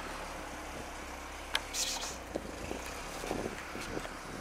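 Steady city-street traffic hum. A sharp click comes about a second and a half in. From about halfway through, a run of light steps sounds on paving stones.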